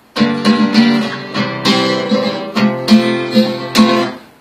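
Acoustic guitar played alone: a run of strummed chords with sharp attacks after a brief pause, the last chord dying away about four seconds in as the song ends.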